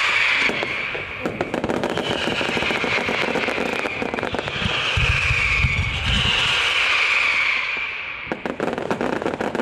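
Fireworks display: dense crackling pops from crackling fountains and comets, with a hissing rush that falls in pitch four times. Deeper booms come about five seconds in.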